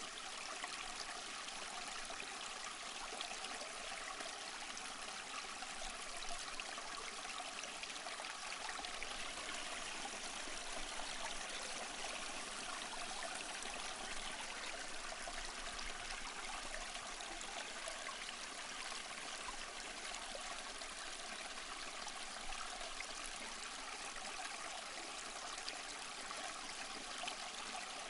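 A small stream flowing steadily, with an even splashing and trickling of water that does not change.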